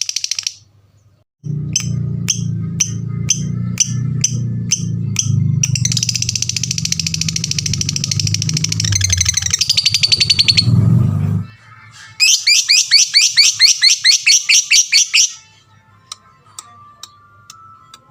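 Lovebird singing: a string of sharp evenly spaced chirps, about two a second, runs into a long fast chattering trill, then after a short break comes a rapid run of shrill chirps near the end. Background music with a low steady bass plays under the first two thirds and stops about eleven seconds in.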